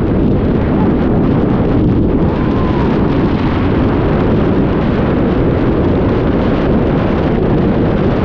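Freefall wind blasting over a hand-held camera's microphone during a tandem skydive: a steady, loud, deep rush.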